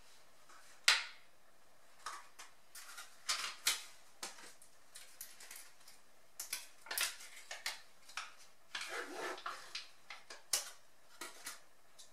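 Small plastic cream cheese tubs being handled and opened: a sharp plastic click about a second in, then a run of irregular clicks, taps and crinkles, with a longer crinkling rustle about nine seconds in.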